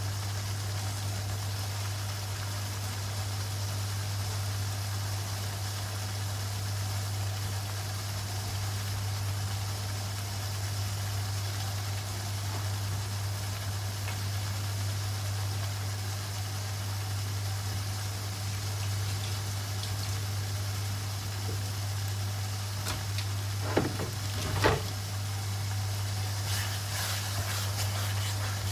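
Steady low hum of a kitchen appliance running. About 24 seconds in, a wooden spatula knocks twice against a wok, and near the end comes the soft crackle of chilli paste being stirred in the hot wok.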